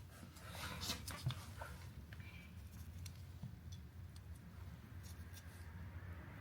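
A few light clicks and taps of parts being handled in the first second or so, over a steady low hum.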